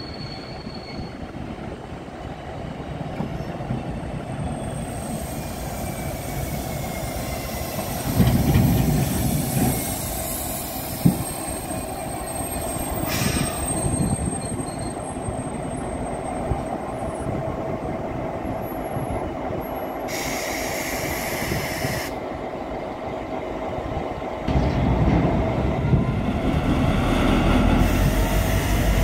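Vossloh Euro 4000 diesel-electric locomotive with its EMD two-stroke V16 diesel running, hauling container wagons slowly past, with thin squealing from the wheels on the station's curves and switches. There is a short hiss about twenty seconds in. The engine grows louder near the end as the locomotive comes alongside.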